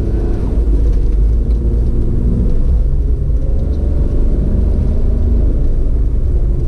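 Steady low rumble of a moving vehicle: engine and road noise picked up close by a GoPro, with the engine pitch rising slightly partway through.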